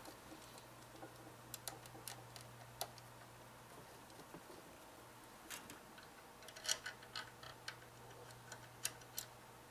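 Faint, irregular clicks and ticks of a screwdriver turning the screws that fix a fan to a liquid-cooler radiator, over a low steady hum. The clicks come singly or in small clusters, a little more of them in the second half.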